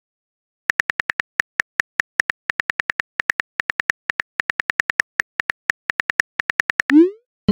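Simulated phone keyboard clicks from a texting-story app: a rapid run of short ticks, about six a second, as a message is typed. Just before the end comes a quick rising swoosh as the message is sent.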